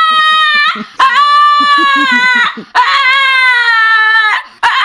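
A dog giving long, high, crying howls, three in a row, each about a second and a half, sagging slightly in pitch at the end.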